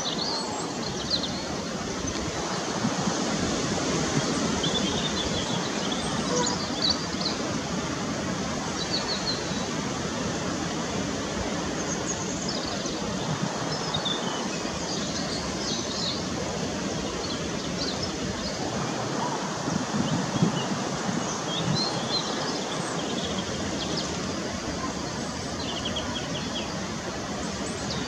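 Steady outdoor background noise, with short high chirps and twitters from small birds scattered throughout.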